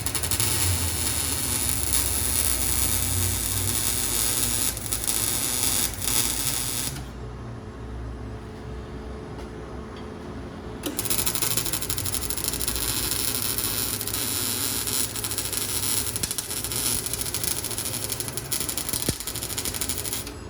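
Welding on an exhaust pipe: a steady, loud crackling hiss from the welding arc. It stops for about four seconds around the middle, then starts again.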